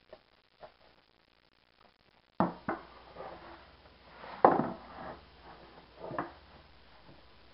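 A few sharp knocks and thumps, the loudest about halfway through, after faint ticking at the start.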